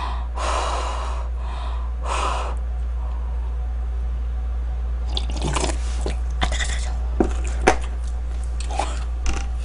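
Two noisy sips of barley tea from a glass mug in the first few seconds, then crisp fried chicken being chewed, with a run of sharp crunches in the second half. A steady low electrical hum runs underneath.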